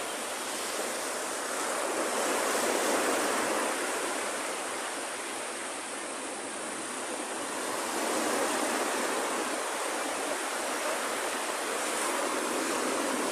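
Surf washing onto a sandy beach: a steady rushing noise that swells and eases slowly.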